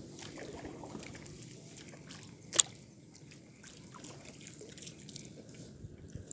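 Water trickling and dripping off a wooden paddle and sloshing around a small boat as it is paddled, with one sharp knock about two and a half seconds in.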